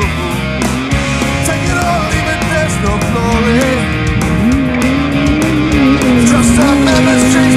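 Loud rock music soundtrack with electric guitar and a steady drum beat; a bending lead line carries the melody.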